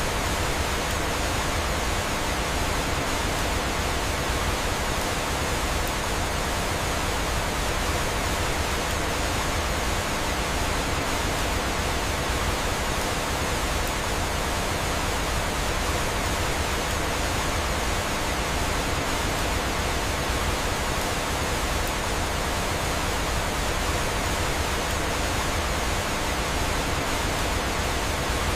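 Steady, even rush of flowing water from a waterfall.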